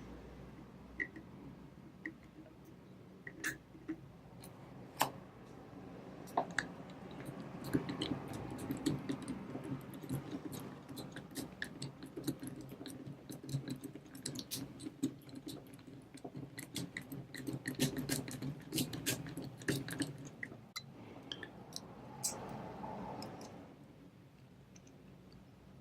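Tubular lock pick being worked in a Ming Tay tubular bike lock cylinder while picking it closed: irregular small clicks over faint handling noise, sparse at first and coming thick and fast through the middle.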